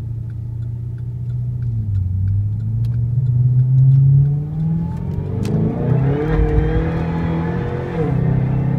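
Car engine with a Corsa Performance exhaust and exhaust cutouts, heard from inside the cabin while accelerating hard up a hill. The engine note rises through the revs, drops at an upshift about four seconds in, rises again and drops at a second upshift near the end.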